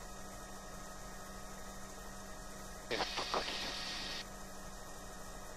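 Steady hum of a Bell 505 helicopter's Safran Arrius turboshaft engine and rotor, heard inside the cockpit in cruise. About three seconds in, a louder rush of noise cuts in for just over a second and stops abruptly.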